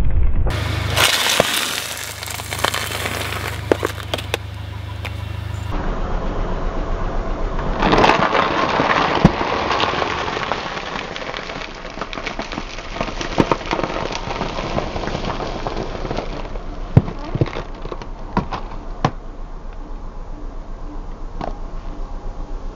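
Car tyres rolling over and crushing small objects in a run of separate clips: crackling and crunching of plastic and packaging, broken by sharp cracks and pops.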